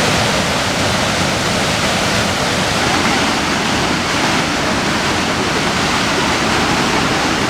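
Muradiye Waterfall running high with spring flow: a loud, steady rush of falling water.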